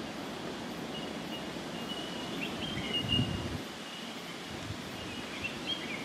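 Outdoor ambience: a steady hiss of background noise under a thin, steady high tone, with a few faint short high notes and a soft low bump about three seconds in.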